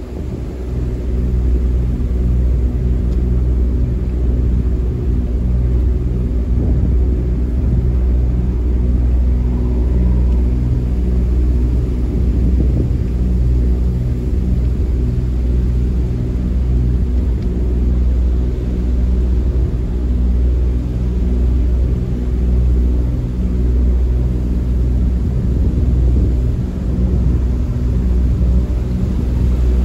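Boat engine running steadily at slow cruising speed: an even, low drone with no change in pace, heard from on board.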